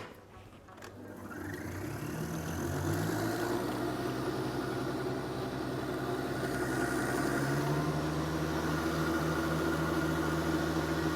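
Electric beater running steadily, whipping cream and mascarpone cheese together in a bowl. Its hum builds up over the first two seconds and changes speed about seven and a half seconds in.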